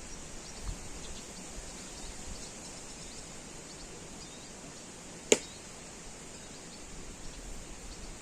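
Wind buffeting the microphone in low gusts under a steady high insect chirring, with one sharp click about five seconds in.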